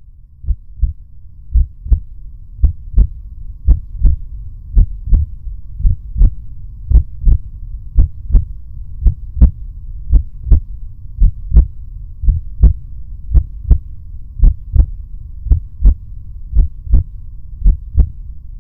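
Heartbeat sound effect: slow, steady lub-dub double thumps, a little under one beat a second, over a low steady hum.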